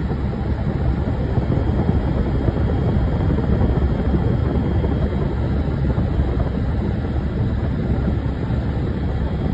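Steady, loud, low rumble of vehicle engine noise, with no pauses or changes.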